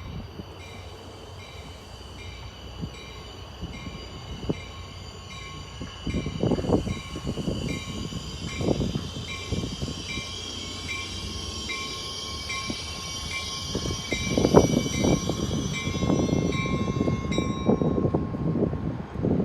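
A train running past with wheels clattering over the rail joints, the clatter growing from about six seconds in. Over it, a bell rings quickly, about twice a second, together with a high steady whine; both stop shortly before the end.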